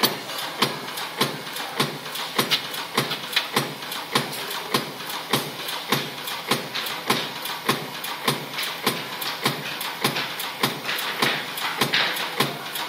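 SBM 320 automatic screen-protector die-cutting machine running, cycling with a steady, rapid train of sharp clacks, roughly two to three a second, over a constant mechanical hum.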